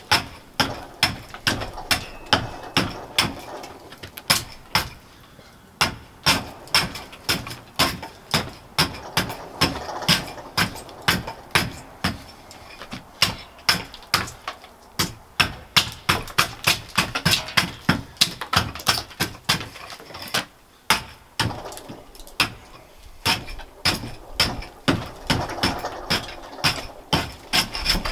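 A bark spud chipping bark off a gray birch log: repeated sharp chopping strikes of the curved blade into the bark, about two a second.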